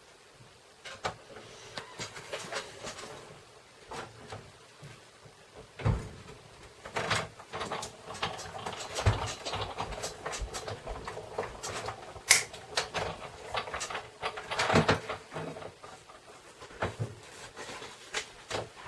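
Hands working with a die-cutting machine's plates, a metal die and cardstock on a tabletop: a run of irregular clicks, taps and paper rustles, with a few sharper knocks.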